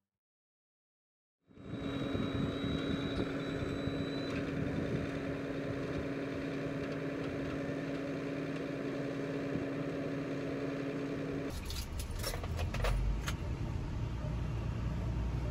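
Silent for a moment, then a tilt-tray tow truck working with a steady hum as it loads a vehicle onto its tray. About twelve seconds in, the hum gives way to the lower rumble of the tow truck heard from inside its cab, with a few knocks and rattles.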